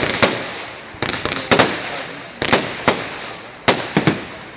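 Fireworks display: shells bursting in quick clusters of sharp bangs, about one cluster a second, each fading away before the next.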